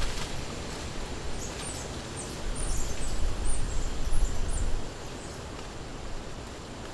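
Outdoor forest ambience: a steady hiss with a run of short, high chirps from birds. A low rumble underneath drops away about five seconds in.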